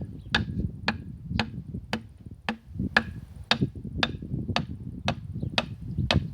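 Steady light hammer taps, about two a second, of the kind made when tapping pistons down into the cylinder liners of a combine harvester engine, over a low rumble.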